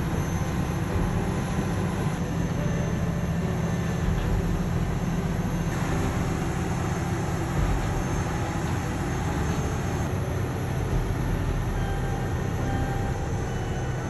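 Caterpillar 631E wheel tractor scraper's diesel engine running steadily under load as the scraper loads soil into its bowl, a deep, even engine sound with no breaks.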